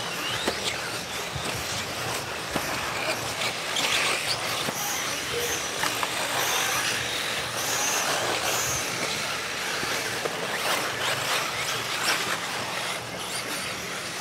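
Electric RC buggies racing on a dirt track, their motors whining briefly high as they pass, over a steady noise of running cars.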